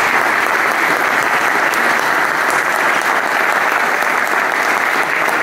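Applause from a seated audience, many people clapping steadily in a hard-walled hall.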